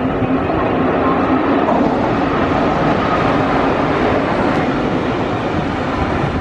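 Indian Railways electric locomotive hauling a fast train through a station without stopping: loud, steady running noise of wheels on the rails as it passes close by.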